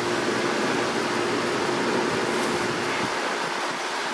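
Steady mechanical hum with a fan-like whooshing noise; the deepest rumble drops away about three seconds in.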